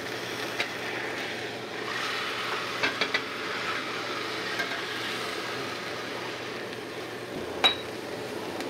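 Beef brisket searing in a hot cast iron skillet, sizzling steadily, with a few clicks of a metal utensil against the meat and pan around three seconds in and a sharper clink near the end.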